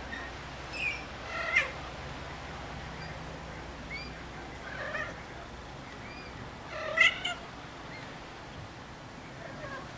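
Three-week-old Ocicat kittens mewing: short mews scattered through several seconds, the loudest about seven seconds in.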